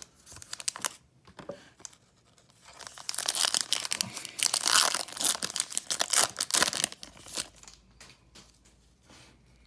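A foil baseball card pack wrapper being torn open and crinkled, a rapid crackling from about three seconds in until about seven seconds in, after a few light handling clicks.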